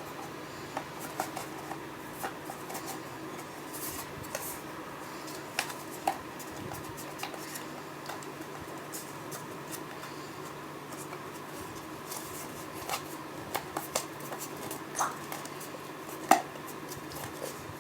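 Light, scattered taps and clicks of thin MDF cutout pieces being handled and pushed into each other's slots, over a steady low hum.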